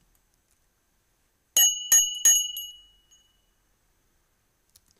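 Three quick metallic bell rings, about a third of a second apart, starting about one and a half seconds in. The last ring fades out over about a second. It is a bell sound effect dropped in after the joke's punchline.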